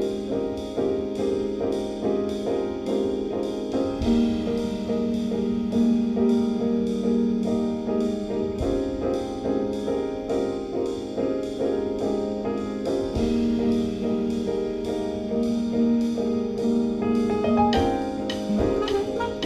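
Background music led by a keyboard, with repeated notes in a steady beat.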